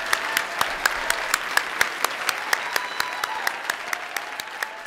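Audience applauding, a dense round of clapping that thins out and dies down toward the end.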